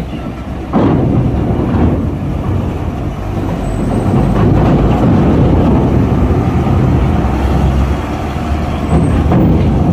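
Heavy diesel truck engine running under load as a tall, loaded cargo truck drives over the steel loading ramp onto a ferry, with a sharp knock under a second in as it rises in level.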